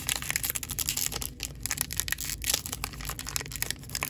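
A Topps Heritage baseball card pack's wrapper being torn open and crinkled by hand: a dense, irregular run of crackles and rustles.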